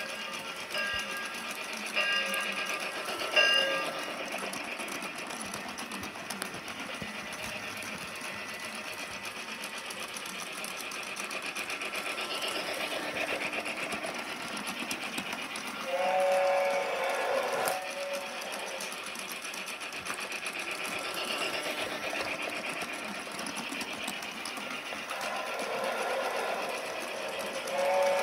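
Battery-powered toy Hogwarts Express train running on plastic track, its motor whirring steadily with a fine rhythmic clatter. The toy's built-in sound effects add a few short tones near the start and a longer whistle-like tone about sixteen seconds in and again at the end.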